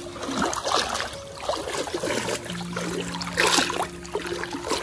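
Water splashing and sloshing as someone wades through shallow, muddy floodwater, with louder surges about half a second in and again about three and a half seconds in.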